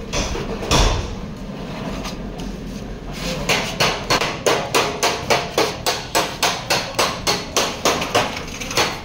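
Rapid, even hammer blows, about four a second, starting about three seconds in, with a single louder knock just under a second in.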